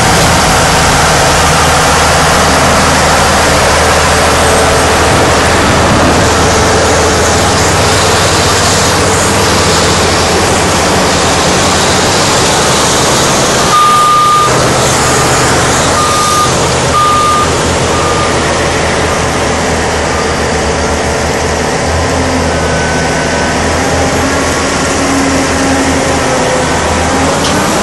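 Heavy diesel engine noise from a Caterpillar 988 wheel loader digging and loading rock, loud and steady. A back-up alarm beeps about four times around the middle.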